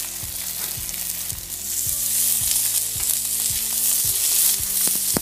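Saba (Norwegian mackerel) fillets sizzling in a hot ridged grill pan while they are turned over with tongs; the sizzle grows louder from about two seconds in as a turned fillet goes back down on the pan.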